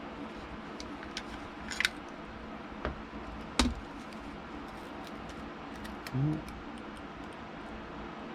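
Small sharp clicks and taps of repair tools working on a handheld game console's plastic housing, a handful of them scattered through, the loudest about three and a half seconds in, over a steady low background hum. A short low rising hum about six seconds in.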